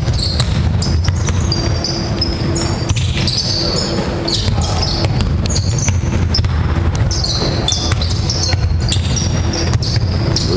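Basketball dribbled on a wooden court, with repeated short knocks of the ball and players' sneakers squeaking on the floor during live play.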